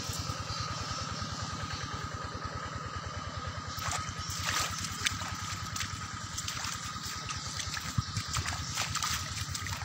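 Small engine running steadily at an even speed, with a steady high whine over it, while water trickles; a few light knocks about halfway and near the end.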